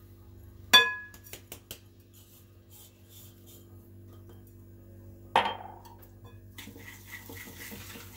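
A drinking glass clinks sharply against a ceramic bowl with a brief ringing tone as sugar is tipped from it into beaten eggs. A second ringing clink comes about five seconds in. Near the end a whisk scrapes and beats the eggs and sugar in the bowl.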